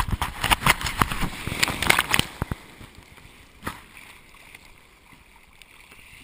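Breaking surf churning over and around the camera: about two seconds of dense splashing and bubbling, then a quieter hiss of foam washing over shallow sand.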